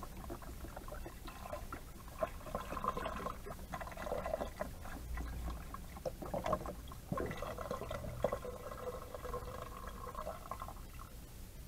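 Chicken broth pouring in a stream from a carton into the stainless steel inner pot of an Instant Pot.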